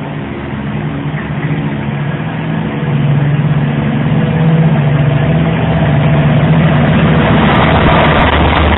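Diesel locomotive engine running with a steady hum. It grows louder about three seconds in, joined by a rising rumble and hiss.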